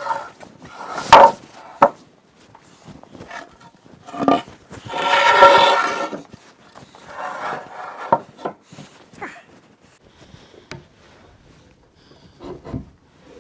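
Wooden bench timbers being handled: scattered knocks of wood on wood, the loudest about a second in, and a longer rasping, grinding sound of about a second and a half around five seconds in.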